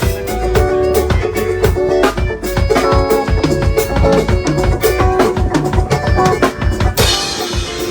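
Music with a fast, busy drum and percussion beat over held pitched notes, with a bright hiss in the highs near the end.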